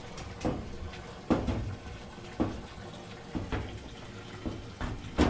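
Washing machine filling, water running steadily into the tub, with a few short knocks.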